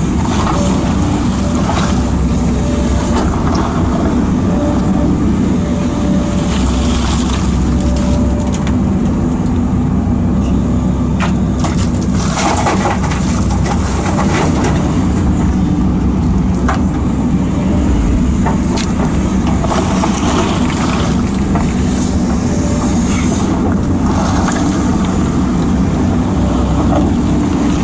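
JCB JS220 22-tonne tracked excavator's diesel engine running steadily under working load, with occasional knocks and rattling of stone as it digs and loads. A faint steady tone comes and goes.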